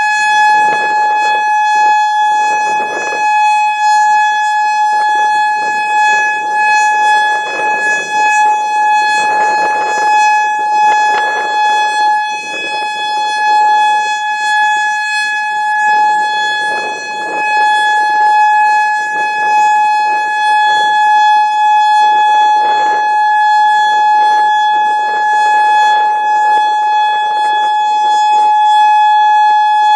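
Federal Signal Modulator 4016 electronic outdoor warning siren sounding a loud steady alert tone, held at one pitch without rising or falling. Gusty wind buffets the microphone over it.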